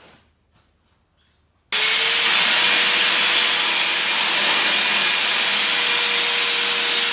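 A loud, steady rushing hiss with one constant mid-pitched hum under it, starting suddenly about two seconds in: the sound of a running machine or power tool.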